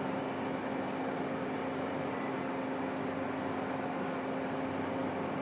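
Steady mechanical hum with a low drone and an even hiss behind it, unchanging throughout.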